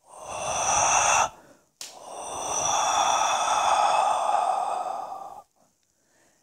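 A person breathing out loudly twice: a short breath, then after a brief pause a long one lasting about three and a half seconds.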